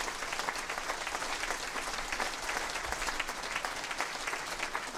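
A crowd applauding, a steady patter of many hands clapping.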